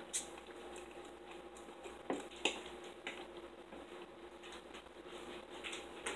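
Scattered light clicks and taps of a fork and plates during a meal, a few at a time, over a faint steady hum.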